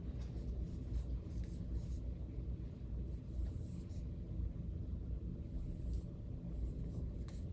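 Dry-erase marker writing on a whiteboard: faint scratchy strokes, a couple of them a little louder, over a steady low room rumble.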